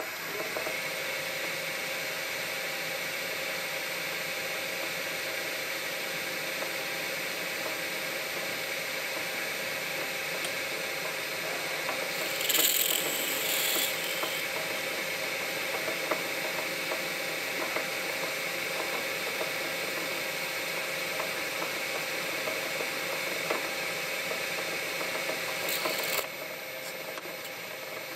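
Metal lathe running steadily with a whine from its gearing while a 7/64-inch twist drill in the tailstock chuck bores through the spinning valve-guide stock. A louder burst of cutting noise comes about 13 seconds in, and another just before the level drops near the end.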